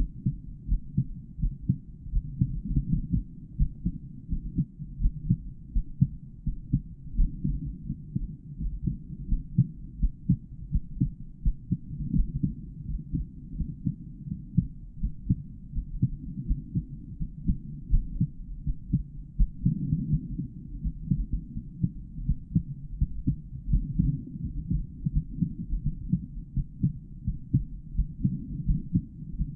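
A man's heartbeat heard through a stethoscope, picked up by a microphone inside the earpieces: a steady run of regular beats, low and muffled.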